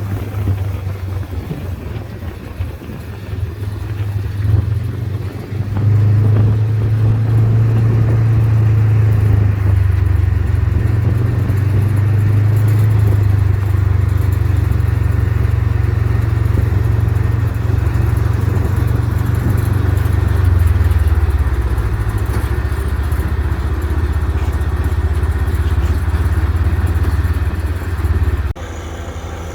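An engine running with a steady low rumble, getting louder about six seconds in and shifting in pitch a little past the middle; it cuts off abruptly near the end.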